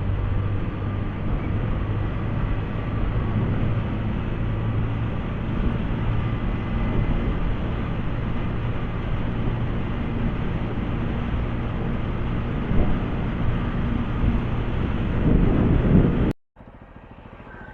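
TVS Apache RTR 200 motorcycle riding along, its single-cylinder engine running steadily under the rush of wind over the microphone. The sound cuts off abruptly near the end, leaving a much quieter background.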